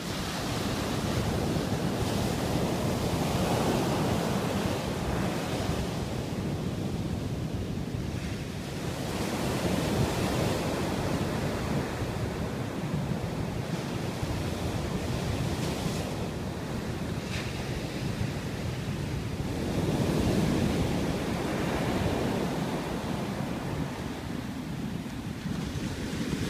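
Rough sea surf breaking and washing up a sandy beach in a steady rush that swells louder with a few big waves, with wind buffeting the microphone.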